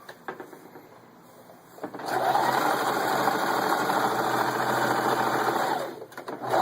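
Singer 4423 electric sewing machine running, stitching at a steady speed. It starts about two seconds in, runs for about four seconds, stops briefly and starts again at the end.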